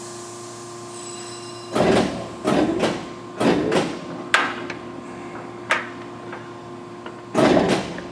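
Tuda Jumbo engine lathe running with a steady hum while its control-box switches are worked, giving six short mechanical clunks and whirs about a second apart, one of them a sharp knock.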